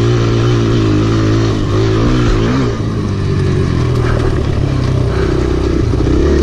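Kawasaki KLX pit bike's small four-stroke single-cylinder engine running on and off the throttle while being ridden, its pitch wavering. About three seconds in the throttle closes and the note drops lower, with a few light knocks after that.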